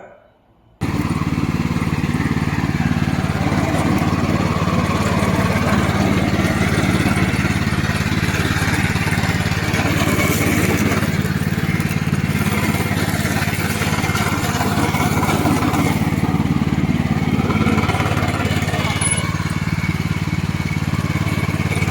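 Tracked remote-control lawn mower running, its engine holding a steady, even pitch. It cuts in abruptly about a second in.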